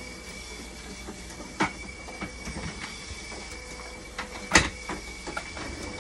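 Dialysis machine running with a steady hum and a high whine. Several knocks and clicks from the machine being handled, the loudest about four and a half seconds in.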